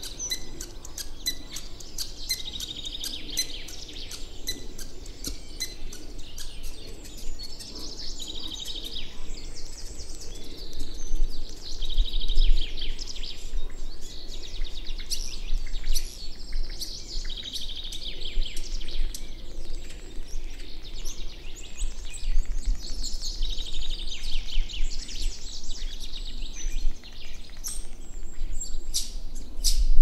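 Songbirds singing, with one bird repeating a short trilled phrase every few seconds. A low rumble comes and goes beneath it.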